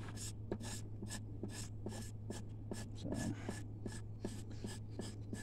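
Steel knife blade scraping a sisal leaf laid on a wooden board, stripping off the green pulp to free the fibers for cordage. The short scraping strokes repeat about three times a second, over a steady low hum.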